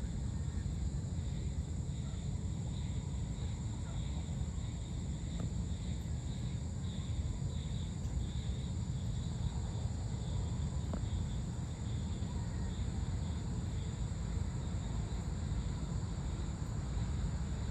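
Evening outdoor ambience: insects chirring steadily in a high, faintly pulsing chorus over a constant low rumble.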